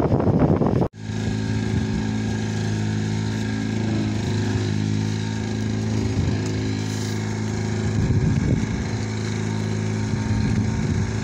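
Engine aboard a fishing boat running steadily: an even, low hum with overtones. It comes in abruptly about a second in, after a short stretch of rushing noise that cuts off sharply.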